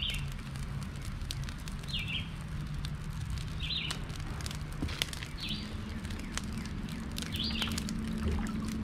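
A bird giving a short chirp over and over, about once every two seconds, with scattered sharp clicks and crackles throughout.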